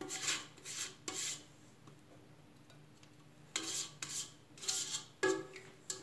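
A spatula scraping sticky bread dough out of a stainless steel stand-mixer bowl, in short scrapes against the metal: a few in the first second, a pause of about two seconds, then another run of scrapes.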